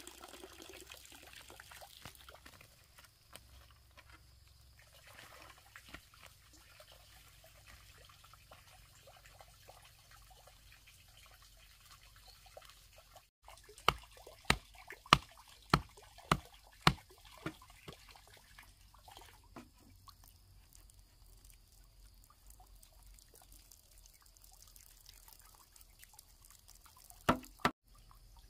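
Soft trickling and dripping of water, broken near the middle by a run of about six sharp knocks, a little under two a second, with two more knocks near the end.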